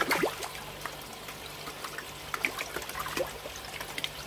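Koi splashing and slurping at the water surface as they feed on floating pellets: a burst of splashes just at the start, then scattered plops and gulps, over a steady low hum.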